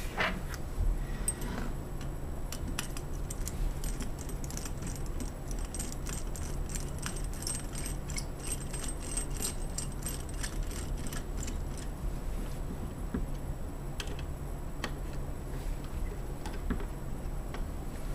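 Light metallic clicking and clinking of the bolts and mounting bracket of an iButton lock receptor being turned in and fastened on a door. A rapid run of small clicks fills the first half, then thins out to occasional ticks.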